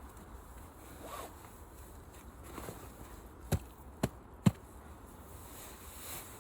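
Three sharp knocks or clicks about half a second apart, a little past the middle, the last one the loudest, over faint rustling.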